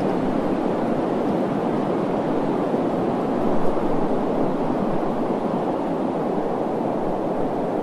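Steady rushing noise, even throughout, with no tone, rhythm or voice in it.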